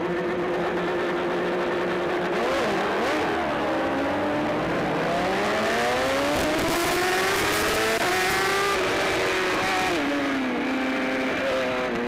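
Racing sportbikes launching from a race start, the nearest a BMW S1000RR inline-four. Its engine note climbs steadily under hard acceleration for several seconds, then drops back about ten seconds in, with the rest of the field's engines running around it.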